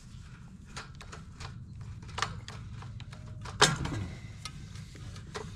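Small metal clicks and taps of carburetor parts and linkage being worked loose by hand on a small engine, with one louder clank about three and a half seconds in.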